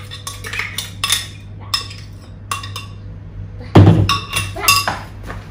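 Metal spoon clinking and scraping against the inside of a glass blender jug while blended cauliflower is scooped out, with a louder knock of the jug about four seconds in.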